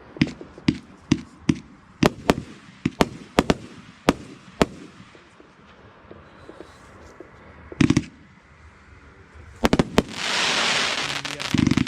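Small consumer firework cake (Riakeo Peking Opera 1 compact) firing: a run of sharp bangs, a few a second, with pauses between groups. About ten seconds in comes a dense crackling that lasts about a second and a half, from the cake's crackling effect.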